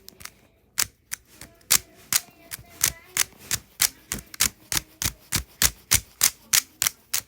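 Plastic Rubik's Cube being twisted, its layers clicking as they turn, about three sharp clicks a second, starting about a second in.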